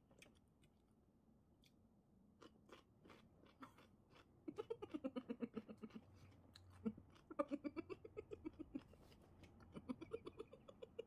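A person chewing a mouthful of pasta, with faint wet mouth clicks. About halfway in come three bursts of quick, pitched vocal pulses from the eater, several a second.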